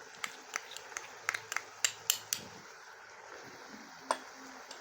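A metal spoon clinking and tapping against a pot or spice bowl, about a dozen quick clinks in the first two seconds and one more near the end, over a faint steady hiss from the cooking masala.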